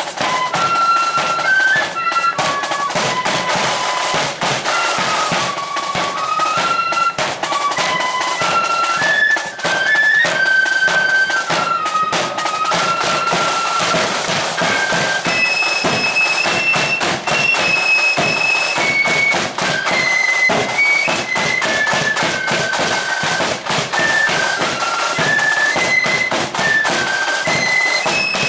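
Flute band playing a tune: many flutes sounding the melody together in a stepping line, over a bass drum beating time.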